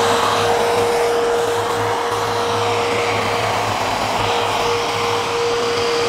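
Bosch GAS 15 PS wet/dry extractor's 1,100 W motor running steadily, air rushing through its hose and nozzle, with a constant motor whine over the noise.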